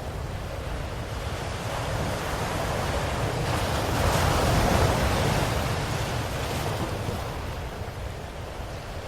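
Ocean waves washing onto a shore: a steady surf hiss with one wave swelling up, peaking about halfway through, and fading back as it draws off.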